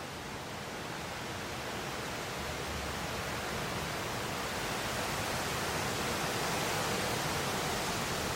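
Strong wind blowing through trees in fresh leaf, the leaves and branches rustling in a steady rush that swells gradually louder.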